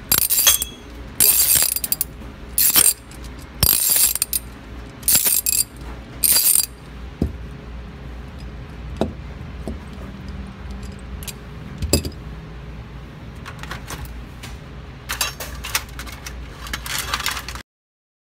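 Socket-wrench ratchet handle from a cheap socket set being worked back and forth, its pawl clicking over the gear teeth in quick runs of clicks. There are about five runs in the first seven seconds, then scattered clicks and handling, then more runs before the sound cuts off suddenly near the end.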